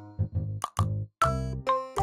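Cheerful children's-style background music of short, bright, evenly paced notes over a bass line, breaking off for a moment about a second in before picking up again.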